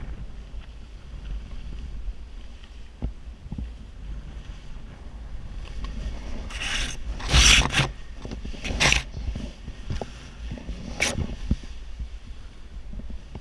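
Nylon parachute canopy rustling and swishing as it is bundled up by hand, in several bursts, the loudest about halfway through and another near 11 seconds, over a steady low rumble of wind on the microphone.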